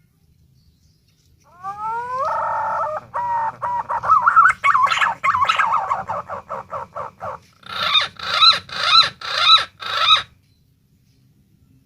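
Green pigeon (punai daun) song: a few rising glides about a second and a half in lead into warbling notes and a quick run of short notes, ending with five louder, evenly spaced notes that stop a little after ten seconds.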